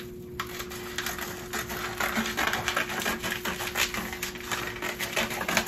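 Scissors cutting across plastic vacuum-sealer bag material, a quick, steady run of crisp snips and crinkles.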